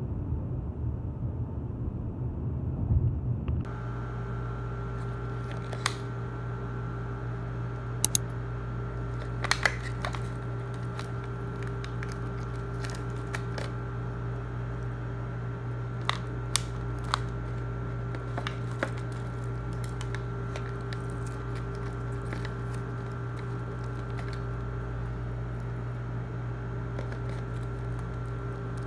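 Rushing road noise inside a moving car, cut off suddenly a few seconds in. It is followed by a steady machine hum of several constant tones, with occasional sharp clicks and crinkles as food packaging and a wrap are handled.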